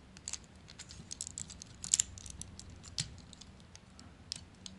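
Small plastic clicks and snaps of a Takara Masterpiece MP-12 Lambor (Sideswipe) Transformers figure's parts being handled and pressed into place while it is transformed: an uneven scatter of light clicks, the sharpest about two and three seconds in.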